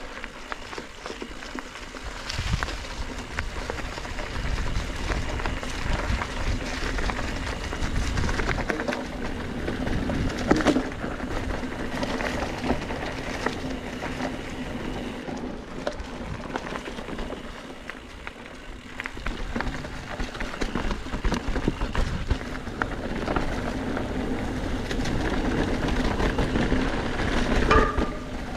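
Mountain bike descending a dirt singletrack: tyres rolling and skidding over dirt and roots, the bike's frame and parts rattling over bumps, and wind rushing over the microphone. A steady low buzz runs underneath from about eight seconds in.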